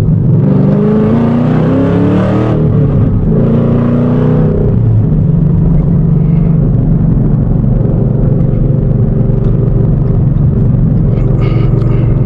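Ford Mustang GT's 5.0 L Coyote V8 with a dump exhaust, heard from inside the cabin: it pulls up in pitch, breaks for a gear change about two and a half seconds in, pulls up again, then settles into a steady cruising drone from about five seconds in.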